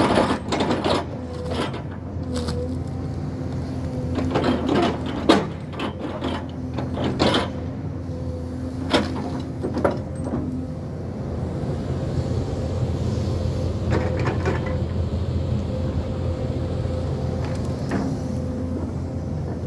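Hyundai crawler excavator running steadily, its engine and hydraulics giving a constant hum with a held tone, while its rake or grab works the brush; sharp cracks and knocks come repeatedly in the first half and twice more later.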